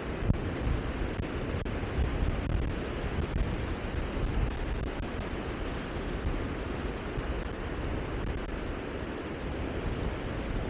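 Steady rushing wind buffeting the microphone, heaviest in the low end.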